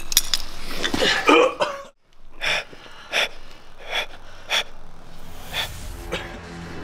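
Men gasping and grunting as they struggle: close, effortful breaths for the first two seconds, then about five short, sharp gasps spaced under a second apart after a brief drop-out.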